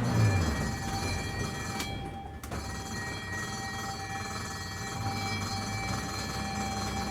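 Ambulance engine revs falling back to a steady low idle just after the start, then idling, with a brief drop-out about two seconds in.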